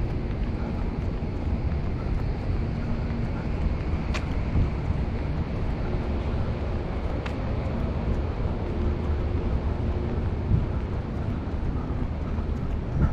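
City street noise of traffic running by, with wind rumbling on the microphone. Two short sharp clicks come about four and seven seconds in.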